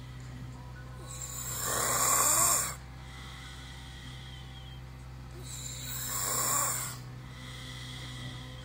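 A man snoring loudly: two long snores about four seconds apart, the first the louder and cutting off sharply.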